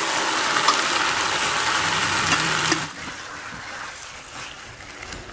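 Marinated duck pieces sizzling in hot oil with lemongrass, garlic and shallots as they are stir-fried with chopsticks: the meat going in to sear. The sizzle drops sharply about three seconds in and carries on quieter.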